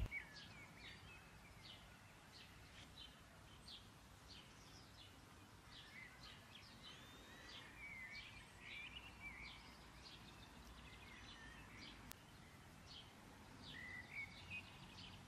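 Near silence, with faint, scattered bird chirps and short twittering calls in the background.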